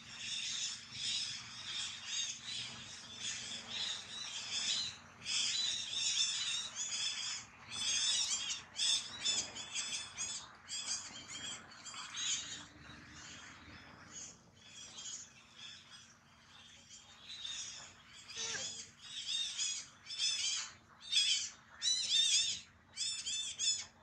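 Chorus of high-pitched calls from wild animals in the surrounding forest, pulsing about two to three times a second.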